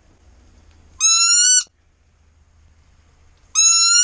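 A hand-blown waterfowl game call sounding loud, even, drawn-out notes that rise slightly and then hold, repeated about every two and a half seconds: one note about a second in and another near the end.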